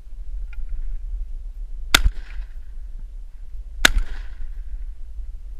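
Two shotgun shots about two seconds apart, each a sharp crack with a short echoing tail.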